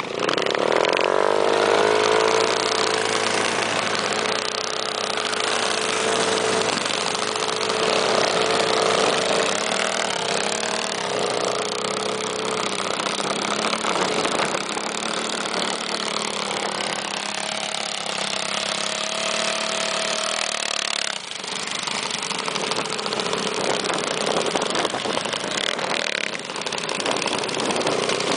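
Small minibike engines running as riders cruise along, their pitch drifting up and down with the throttle over a steady rush of noise. The sound drops out briefly about two-thirds of the way through.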